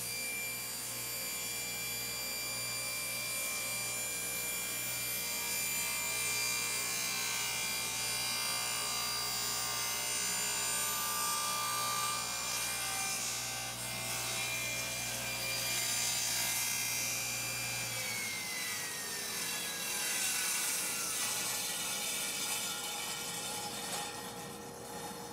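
Table saw running and crosscutting a glued-up block of wood on a crosscut sled. About 18 seconds in the saw is switched off, and its whine falls away as the blade spins down.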